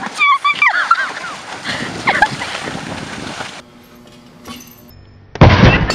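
Horse plunging through a pond, water splashing and spraying for about three and a half seconds, with high shouts over the first second. It cuts off, and after a quiet stretch a sudden loud thud comes near the end.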